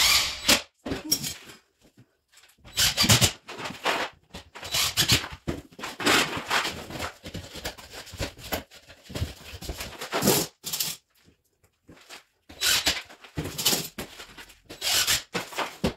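Irregular knocks and scrapes of drywall strips being pushed into place at the base of a wall, along with brief runs of a cordless drill driving screws, coming in short bursts with gaps between them.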